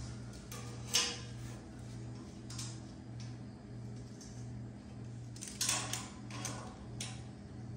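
Metal parts clinking and clattering as they are handled, with the sharpest clatter about a second in and another just before the six-second mark. Under it runs a low hum that swells and fades about every two-thirds of a second.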